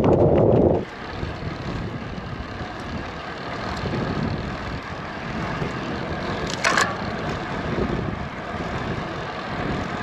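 Steady rushing road noise from riding a bicycle, with a brief high-pitched sound about two-thirds of the way through. A louder sound before it cuts off just under a second in.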